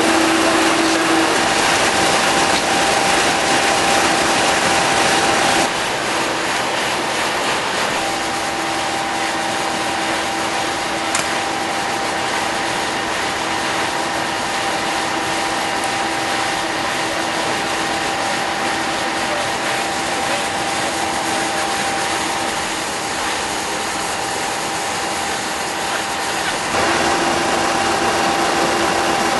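Class 50 diesel locomotive's English Electric 16-cylinder engine idling, with a loud steady engine noise and a steady hum over it. The level drops slightly about six seconds in and rises again near the end.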